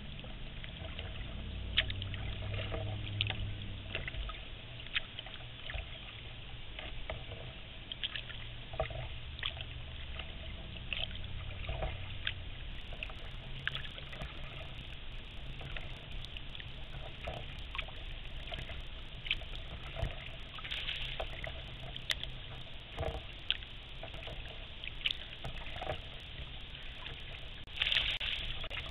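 Kayak paddle strokes in calm water: irregular splashes and drips as the blades dip and lift, over a low rumble, with a louder splash near the end.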